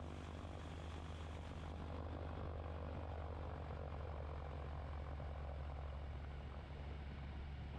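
PulsR flexwing microlight's engine and propeller running steadily as the aircraft taxis: a constant low drone with an even rush of noise over it, heard from the cockpit.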